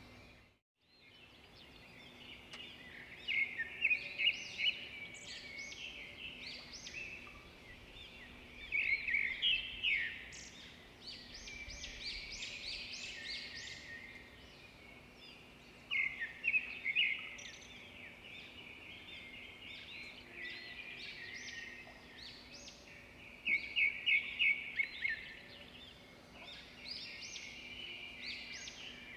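Small birds chirping, with bursts of rapid twittering every few seconds over a faint steady hum.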